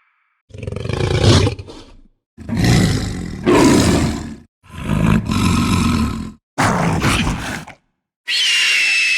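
Sound-effect creature roars: four deep, rough roars in a row, each one to two seconds long, with brief silences between. Near the end a high, steady shrieking cry begins.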